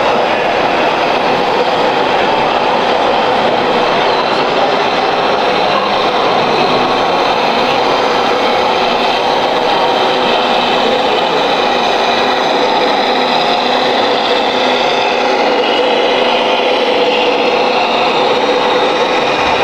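Steady, unbroken mechanical running noise with a constant hum, level throughout.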